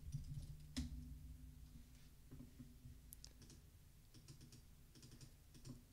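Faint computer-keyboard typing: scattered soft key clicks, with one louder click about a second in.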